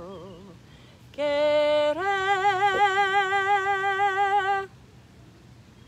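A woman singing a cappella, holding a long final note with a wide vibrato. The note steps up in pitch about two seconds in and stops a little before the end.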